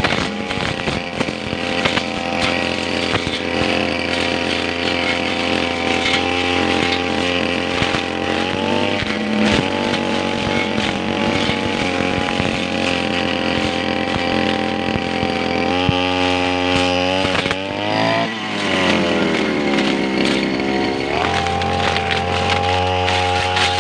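Brush cutter engine running at high revs while cutting grass, its pitch dropping and climbing back about three times as the throttle is eased off and opened again.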